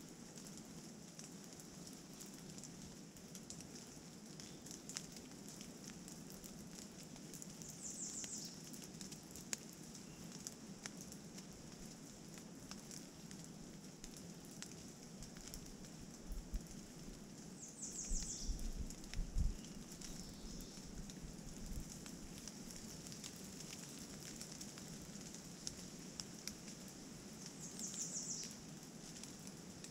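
Steady rain in a forest, with scattered drops pattering and dripping. A bird gives a short, very high call three times, about ten seconds apart. Wind gusts on the microphone add a low rumble a little past the middle.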